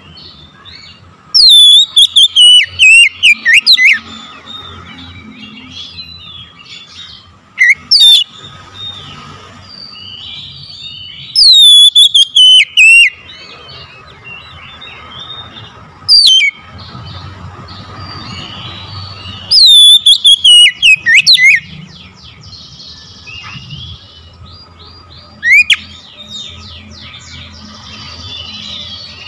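Oriental magpie-robin singing in loud bursts several seconds apart, about six in all. Each burst opens with high whistled notes that slide down in pitch, and the longer bursts run on into a rapid string of notes. Fainter chirps carry on between the bursts.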